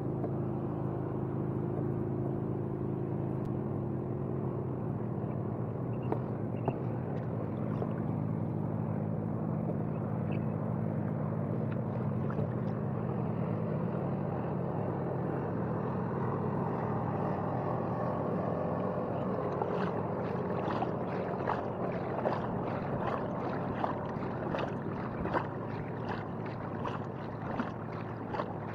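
Water moving against a kayak hull, with a low steady hum and a few level tones that fade out about halfway. From about two-thirds in come quick splashy ticks, roughly two a second, as the kayak paddle goes into the water.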